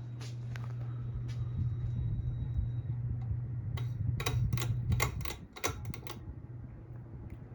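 Hampton Bay Carousel ceiling fan motor running with a steady hum. A quick run of about ten sharp clicks and rattles comes between about four and six seconds in, and the low rumble drops off suddenly a little after five seconds in.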